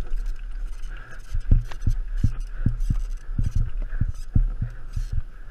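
Mountain bike rolling down a rough dirt trail: a run of irregular muffled thumps, about three or four a second, as the wheels jolt over bumps and rocks, over a steady low rumble.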